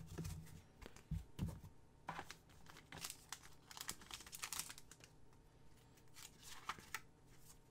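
Faint crinkling and tearing as a trading card pack wrapper is opened by hand, with soft rustles and clicks of the cards being handled.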